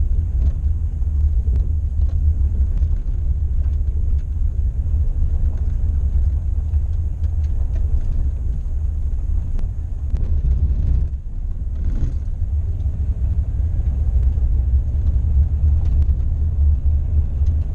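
Van driving slowly on a gravel dirt road, heard from inside the cab: a steady low drone of engine and tyres, with scattered small knocks and one louder knock about twelve seconds in.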